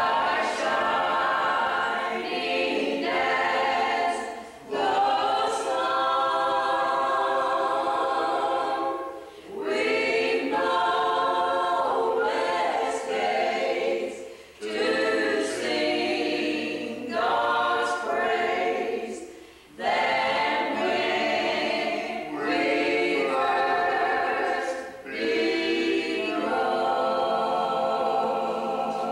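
A small group of men's and women's voices singing together unaccompanied, in phrases of about five seconds with a short breath between each.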